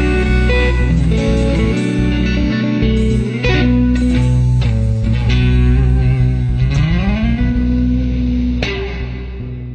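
Electric guitar playing sustained notes, with a slow upward slide about two-thirds of the way through and a last note struck near the end that starts to fade.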